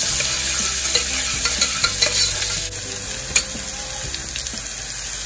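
Chopped onion, mustard seeds and curry leaves sizzling in hot oil in an aluminium pressure cooker, stirred with a metal slotted spoon that clicks and scrapes against the pan. The sizzle drops a little in level about halfway through.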